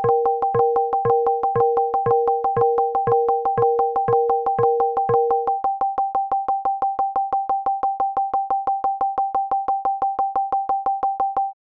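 Synthesized Web Audio tones from a browser: a higher beep-like tone pulsing about five times a second, layered with a lower tone and a soft low thump pulsing about twice a second. The lower layer stops about halfway through, leaving the higher pulsing tone alone until it cuts off suddenly near the end.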